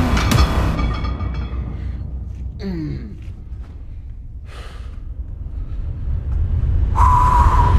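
A lifter's forced breath and a grunt that falls in pitch, as he strains through a barbell curl, over a low steady rumble. Near the end a hiss with a steady tone comes in.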